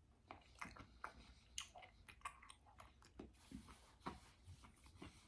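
Faint, close-up chewing with irregular soft mouth clicks and smacks, a couple a second, as someone eats.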